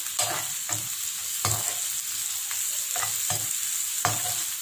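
Chopped onions, green chillies and curry leaves sizzling in hot oil in a kadai. A spatula scrapes and stirs them against the pan in repeated strokes, about one every half second to second. The onions are being sautéed until they soften.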